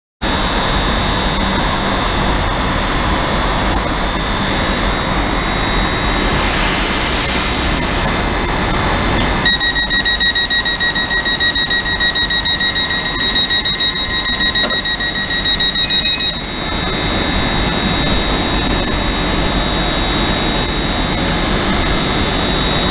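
Train running at a station platform with a steady high-pitched whine over engine noise. From about ten seconds in, a rapid beeping goes on for about seven seconds and then stops.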